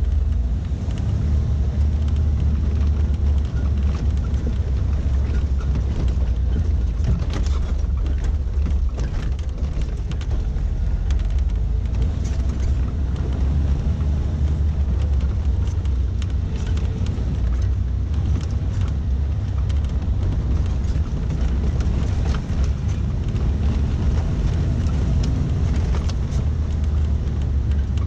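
Suzuki SJ413 Samurai's 1.3-litre four-cylinder engine running steadily as it drives off-road, a constant low drone, with many small clicks and knocks from the rough track and rattling body throughout.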